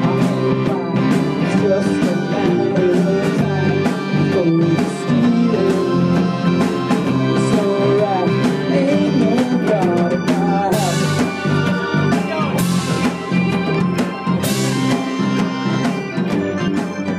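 Rock band music with a drum kit, and three cymbal crashes in the second half.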